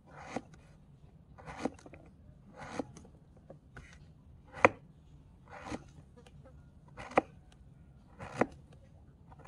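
A miniature kitchen knife slicing a small green vegetable on a tiny wooden cutting board. About eight unhurried cuts, roughly one a second, each a short cutting sound that ends in a tap of the blade on the board.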